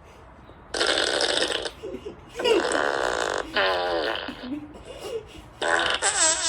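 Recorded fart sound effects played back on a phone, about four in a row with short pauses between, some buzzy and wavering in pitch.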